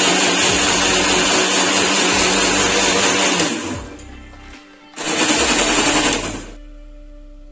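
Electric mixer grinder running at full speed with strawberries, almonds and sugar in its steel jar and no milk yet. It is switched off about three and a half seconds in and winds down, then runs again in a short burst of about a second before winding down once more.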